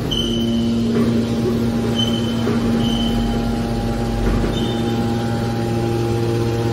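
Hydraulic scrap-metal baler running, its motor and hydraulic pump giving a steady hum. The hum deepens under load for the first few seconds, with a few brief high-pitched squeaks.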